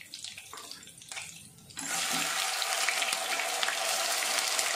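Hot oil in a kadai, faintly crackling at first; about two seconds in, ginger-garlic paste hits the oil and it breaks into a sudden, steady sizzle.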